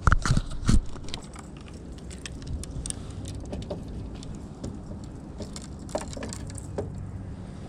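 Fishing gear handled in a canoe: a few heavy knocks in the first second, then scattered light clicks and taps over a low, steady rumble.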